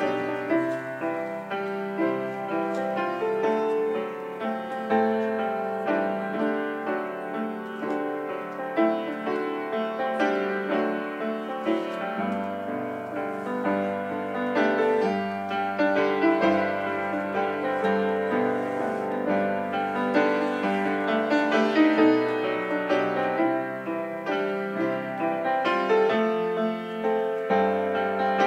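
Piano playing a slow instrumental piece of sustained chords over a bass line that changes every few seconds.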